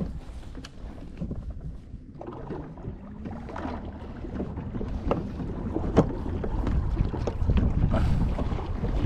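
Water lapping against a plastic fishing kayak's hull with wind buffeting the microphone, the wind rumble growing stronger in the second half. Scattered light knocks and clicks, with one sharper knock about six seconds in.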